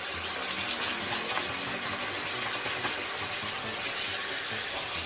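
Squid pieces, still partly frozen, sizzling steadily in hot oil in a nonstick wok while being stirred with a wooden spatula; the water coming off the thawing squid gives the frying a wet, bubbling hiss.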